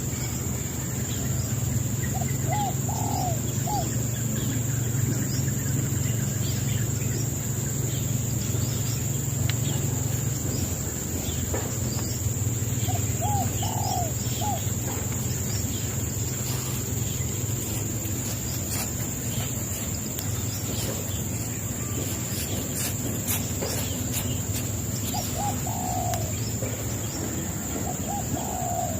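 A bird calling four times, each time a short group of three or four quick notes, over a steady high insect drone.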